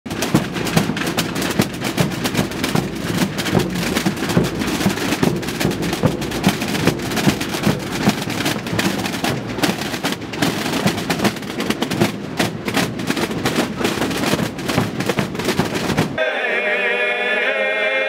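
Dozens of rope-tensioned Holy Week drums (tambores) beaten by marching drummers in a dense, continuous rattle of strokes. About sixteen seconds in it cuts suddenly to a group of voices singing a slow, unaccompanied chant.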